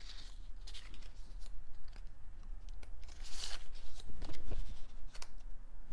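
Small pieces of patterned cardstock being handled and laid down one by one on a paper work mat: light paper rustles, slides and taps, with a louder rustle a little past halfway.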